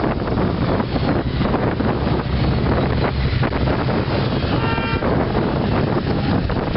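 A column of motorcycles riding past one after another at low speed, their engines running, with wind buffeting the microphone. A horn toots briefly about five seconds in.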